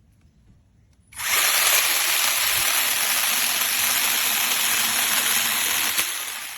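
Brushless battery-powered 6-inch mini chainsaw running and cutting through a tree branch: a steady, loud buzz that starts suddenly about a second in, holds for about five seconds, then tails off near the end.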